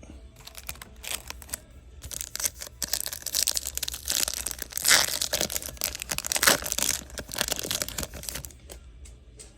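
Trading cards being handled, a dense crinkling and rustling with rapid small clicks that builds up about two seconds in and dies down near the end.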